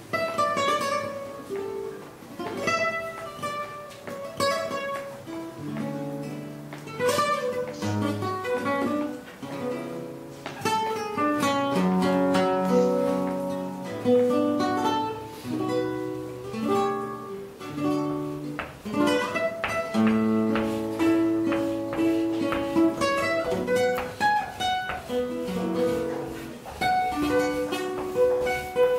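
Music: an acoustic guitar playing a run of plucked single notes and chords, each note ringing and fading.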